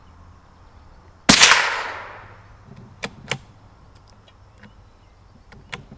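A single gunshot about a second in, its echo dying away over about a second. A few faint sharp clicks follow.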